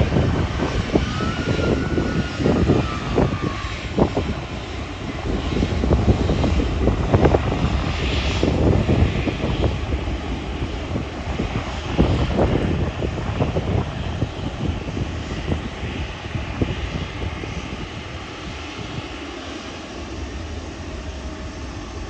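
Jet airliner passing low overhead, its engine whine falling in pitch near the start and its rough, crackling roar slowly fading as it moves away.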